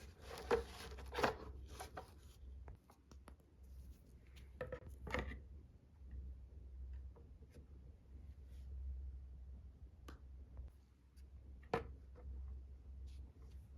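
Hands handling toy packaging and small plastic toy parts: scattered rustles, scrapes and light clicks. There is a burst of rustling at the start, another cluster about five seconds in, and a single sharp click near the end.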